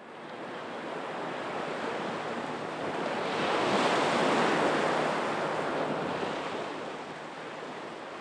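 Ocean surf washing up a sandy beach, the rush of water swelling to its loudest about halfway through and then easing off.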